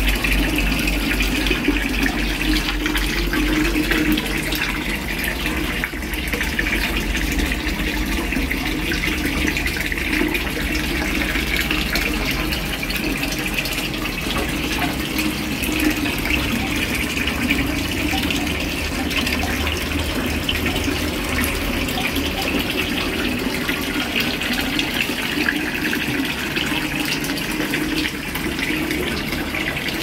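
Thin streams of water pouring from PVC pipe spouts into a backyard fish pond, a steady splashing trickle where the water falls onto the pond's surface.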